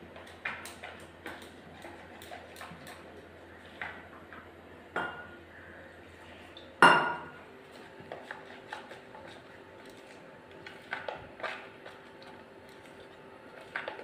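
A utensil clicking and scraping against a ceramic bowl while gram-flour batter is being mixed, with scattered light taps throughout. About seven seconds in comes one loud, ringing clink against the bowl.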